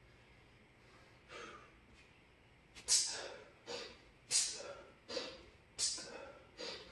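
A man's sharp, forceful breaths in time with two-handed kettlebell swings: from about three seconds in, a loud hissing exhale about every second and a half, with a softer breath between each, after a faint breath a little over a second in.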